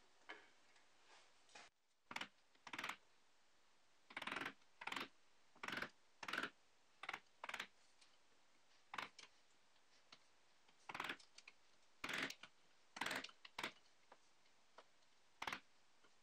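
Narrow chisel pared by hand into the hole of a small beech-wood block, squaring the hole's entrance: a series of short cutting strokes, often two in quick succession, at uneven intervals.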